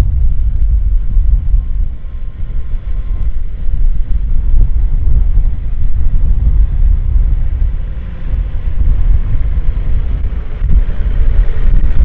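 Deutz-Fahr Agrotron 150 tractor's six-cylinder diesel engine working under load as it pulls a four-furrow plough, a steady low rumble with wind buffeting the microphone. It grows louder near the end as the tractor comes close.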